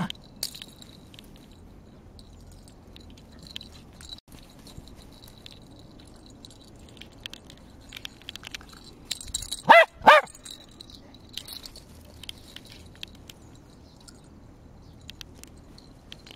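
Small white dog barking twice in quick succession about ten seconds in, while playing fetch; faint rustles and light ticks around it.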